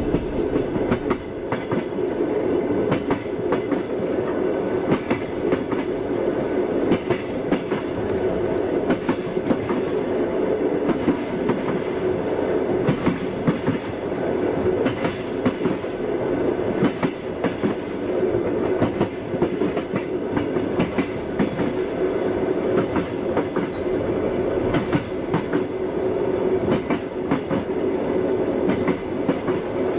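Train wheels clattering over the rail joints: repeated sharp clicks over a steady rumble of a moving railway carriage.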